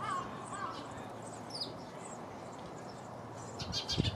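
Small birds chirping outdoors: scattered short, high calls, a few at the start, one about halfway through and a cluster near the end.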